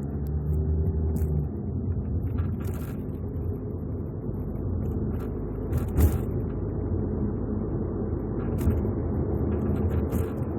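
Mitsubishi Eclipse Cross driving over an uneven road: a steady low road rumble with a few sharp knocks and rattles, the loudest about six seconds in. This is the car's abnormal flapping rattle ("bata-bata") that shows up over bumps such as manhole covers.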